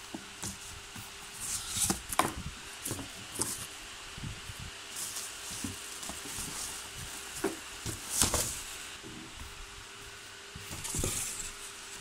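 Cardboard box and crinkly plastic packaging being handled: irregular rustling and crackling with a few sharper knocks, the loudest about two seconds in, about eight seconds in, and a longer crinkle near the end.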